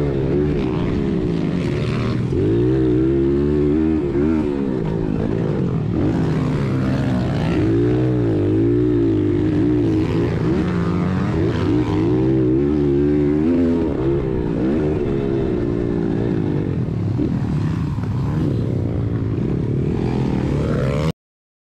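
A 1996 Honda XR100R's four-stroke single-cylinder engine, heard from on the bike while racing on a dirt track, revving up and dropping back again and again. The sound cuts off suddenly near the end.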